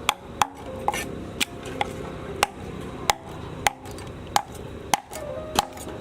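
Knife chopping on a wooden cutting board: a run of sharp knocks, roughly two a second and slightly uneven.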